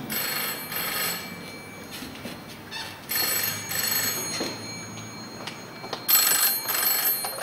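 Telephone ringing in the British double-ring pattern: three pairs of short rings, each pair about three seconds after the last.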